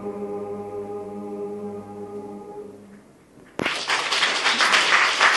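Male choir holding the closing chord of a Russian folk song a cappella, fading away about three seconds in. About half a second later the crowd breaks into loud applause.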